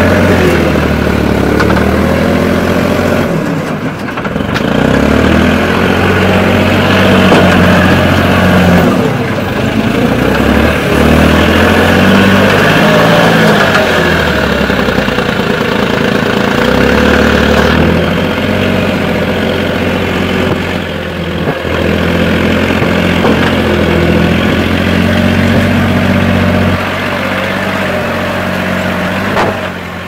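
Engine of a small WS200R backhoe loader running under work, its speed rising and falling several times as the machine digs and pushes soil.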